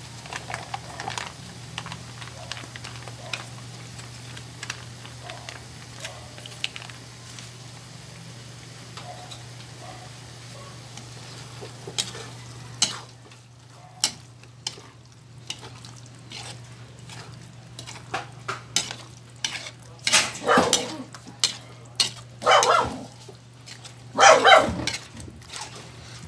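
Meat sauce frying quietly in an aluminium pan, with faint ticks, then a spatula stirring the ground pork and hotdog into the spaghetti sauce, knocking and scraping against the pan; the scrapes grow loudest in the last few seconds.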